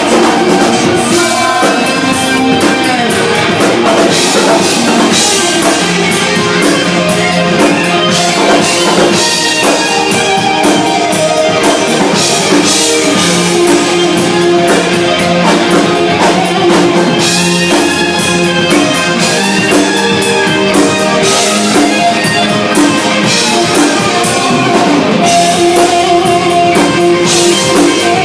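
A rock band playing live and loud: a drum kit with crashing cymbals and electric guitar, without a break.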